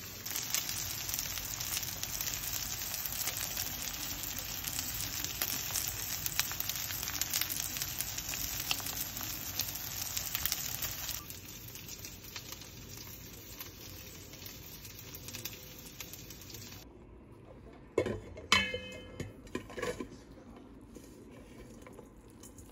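Food sizzling and crackling in a frying pan for about eleven seconds, then much quieter, with a few sharp clinks and knocks of utensils or dishes near the end.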